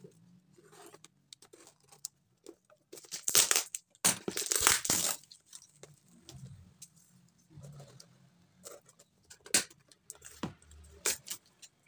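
Packing tape and clear plastic wrap being torn off a taped cardboard courier package, with crinkling plastic; two long, loud tears about three and four seconds in, then shorter sharp scrapes and crinkles as the package end is cut open.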